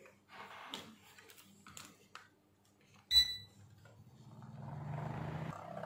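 A short electronic beep about three seconds in, then the heater's blower fan starting up and running with a steady hum and air rush. The heater is running with its blown thermal fuse bypassed by a jumper.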